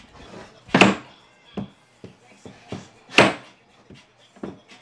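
Two loud, sharp knocks, one about a second in and one just past three seconds, with fainter taps and clunks between.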